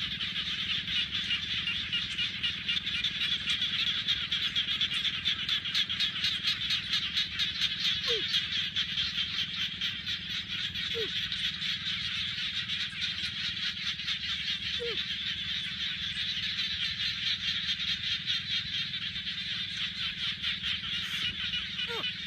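A dense chorus of frogs calling in rapid, pulsing trills without a break, with a low steady hum beneath. A few short falling calls stand out four or five times.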